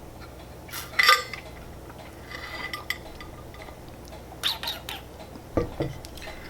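Close-up eating sounds of someone eating a doughnut: mouth and chewing noises with scattered short clicks, the sharpest about a second in, and a couple of low knocks near the end.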